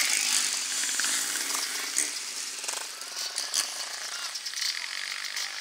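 Off-road motorcycle engines buzzing on a snow race course, the nearest bike fading gradually as it rides away.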